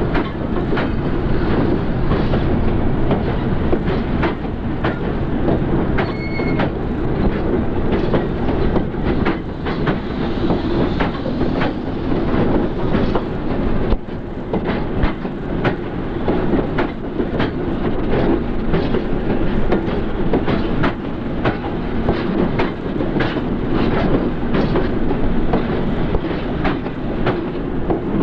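Union Pacific streamlined passenger cars rolling past, steel wheels clicking irregularly over rail joints under a steady rumble, with a brief wheel squeal about six seconds in.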